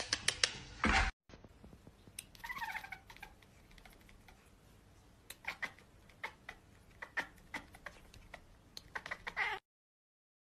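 A cat's short meow, with sharp clicks before it and a run of irregular sharp clicks after it.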